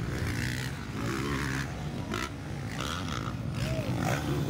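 Motocross dirt bike engines running as riders race around the dirt track, with spectators' voices in the crowd.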